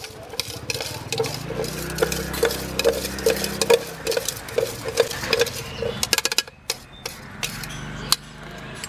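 Metal spoon stirring spiced guava pieces in a stainless steel tumbler, clinking against its side about two to three times a second, then a quicker flurry of clicks and scrapes.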